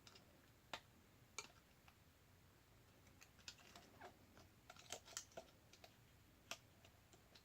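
Faint, scattered small clicks and taps of a Galaxy S5's display flex-cable connector being unplugged and pressed back onto the phone's board, some of them close together in the middle.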